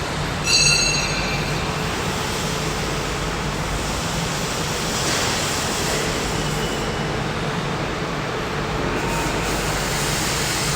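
Steady hum and rumble of factory machinery, with a brief high-pitched metallic squeal about half a second in.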